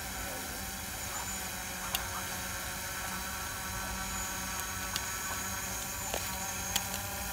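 Steady hum and hiss with a few sparse sharp ticks, which come from a jump rope slapping a concrete ledge.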